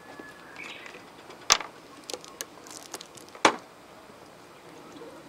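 Two sharp knocks about two seconds apart, with lighter clicks and clinks between them: cookware being handled and set down on a camp table.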